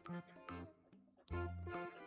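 Light, playful background music with a steady beat; it drops away briefly near the middle.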